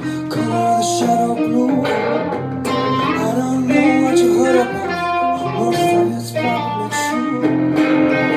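Music with plucked guitar and a singing voice.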